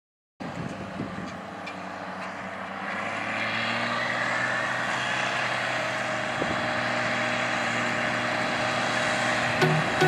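Case IH Maxxum 170 tractor's diesel engine running steadily while it pulls a loaded grain trailer across stubble, growing louder as it approaches. Music starts in near the end.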